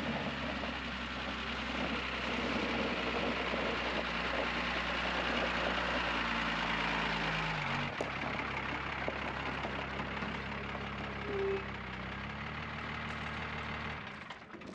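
Old Dodge dually pickup's engine running steadily as the truck pulls up and idles; the engine note stops near the end as it is shut off.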